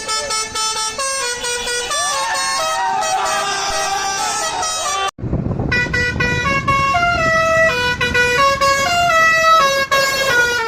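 Indian truck's musical horn playing a tune: loud horn notes stepping quickly from pitch to pitch. It cuts off sharply about five seconds in, then starts another tune over a low noise.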